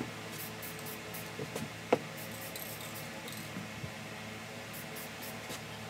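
Spray-paint can sprayed in short, faint hisses over a steady low hum, with one sharp click about two seconds in.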